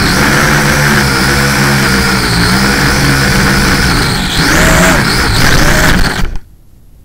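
LaTrax Alias quadcopter's motors and propellers whining steadily. The pitch wavers and slides in the last couple of seconds as the craft tips over, then the whine cuts off abruptly about six seconds in as it crashes into the grass.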